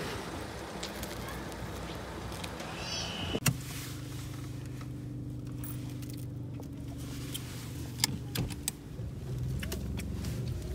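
Open street noise, then a sharp knock about three and a half seconds in. After it comes the steady low hum of a BMW car running, heard from inside the cabin, with a few clicks around eight to nine seconds in.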